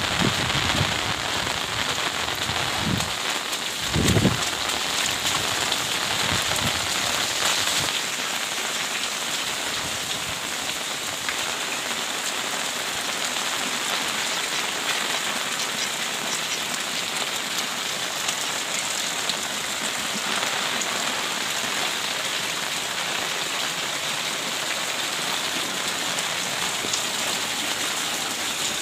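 Heavy rain falling steadily on wet ground and puddles, an even hiss, with two low thumps about three and four seconds in.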